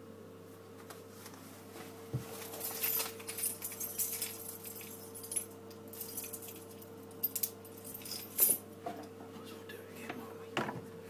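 Steady hum of a Linea One boiler's pump, still running on to clear heat from the boiler after the heating has been switched off. Over it, from about two seconds in, comes a scatter of light clinks and rustles, the loudest near the end.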